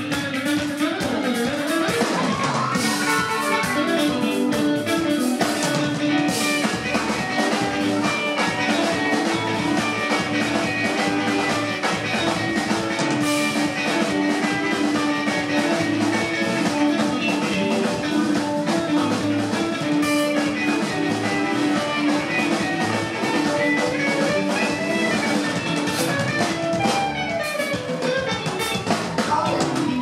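Live band playing a song, with electric guitar prominent over drums.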